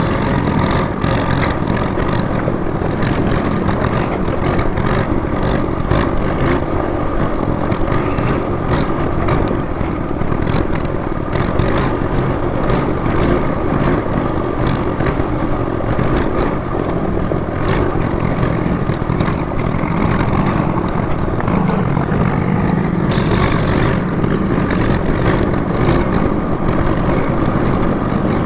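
Motorcycle engine running steadily while under way. It is mixed with a dense, even rush of noise that stays loud throughout.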